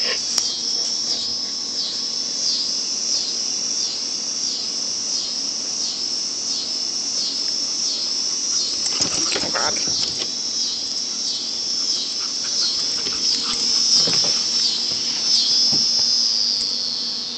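Loud, high-pitched insect chorus that pulses about twice a second without let-up. A few brief rustles and knocks break in around the middle and near the end.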